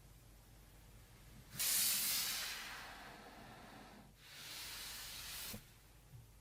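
Two bursts of hissing: the first starts suddenly about one and a half seconds in and fades away, and the second starts about four seconds in and cuts off abruptly.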